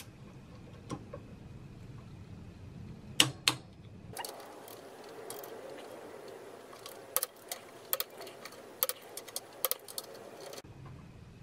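Click-type torque wrench and socket on the sprocket bolts. There are two sharp clicks about three seconds in, then a run of quick ratchet ticks and clicks, as the bolts are tightened to 15 N·m.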